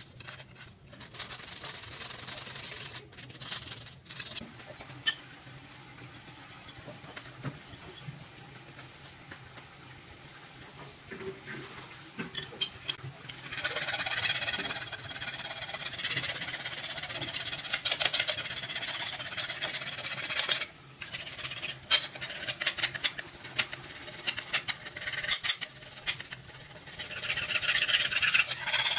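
Steel scraping on steel as a curved knife blade is sharpened by hand: a run of quick rasping strokes, faint for the first dozen seconds, then louder from about halfway and again near the end.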